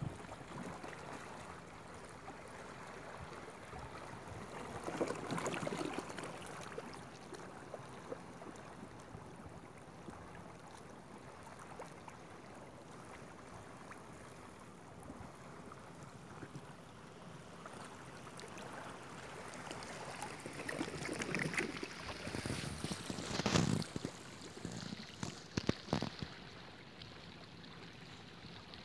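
Small sea waves lapping and splashing against seaweed-covered rocks in shallow water, with louder surges about five seconds in and several sharper splashes in the last third.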